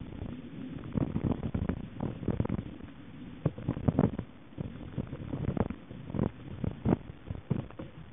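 Mountain bike rattling and knocking over a rough trail, heard through a handlebar-mounted camera: a constant rumble broken by irregular thuds and clatters as the bike jolts over bumps.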